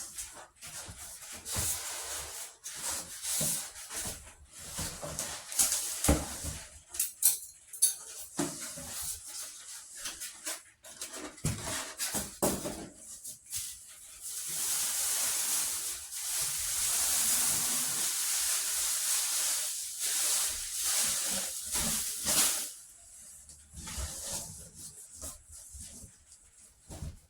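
Handling noises: scattered knocks and clicks, and a steady hissing rustle lasting about eight seconds in the middle, like packaging being worked.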